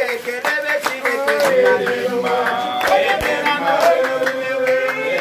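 A group of men singing a chant together, accompanied by hand clapping.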